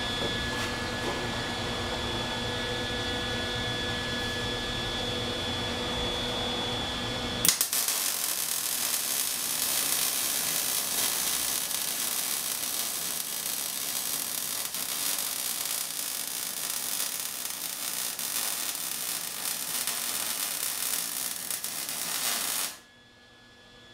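A steady electrical hum, then an electric welding arc strikes about a third of the way in and crackles and hisses steadily for about fifteen seconds as a bead is run along a 3/16-inch steel plate on a tractor loader bucket. The arc cuts off suddenly near the end.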